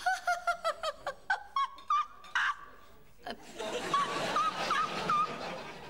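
A woman laughing in a put-on, high-pitched giggle that imitates a fairy-tale maiden's laugh. It comes as quick, even peals in two bouts, with a short pause in between.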